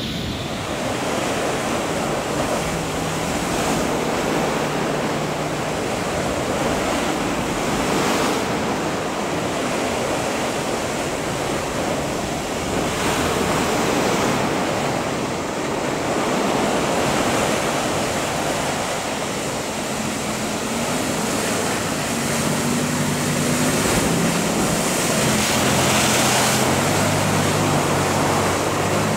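Heavy surf breaking and rushing continuously, swelling and easing as the waves roll through, with wind on the microphone. A low steady hum comes in over the last several seconds.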